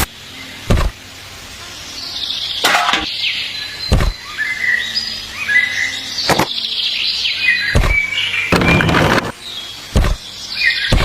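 Birds chirping in short, high gliding notes, with a sharp knock every second or two and a brief scraping rasp about two-thirds of the way through.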